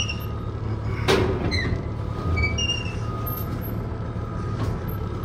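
Excavator's diesel engine running steadily as the machine is driven slowly down off the trailer, with a sharp knock about a second in and a fainter one near the end.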